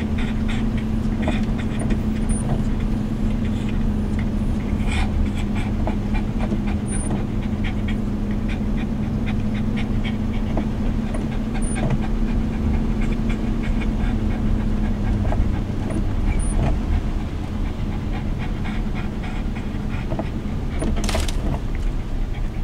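Inside a car's cabin while driving: steady road and engine rumble with a constant hum that fades about two-thirds of the way through, scattered light ticks, and a brief swish near the end.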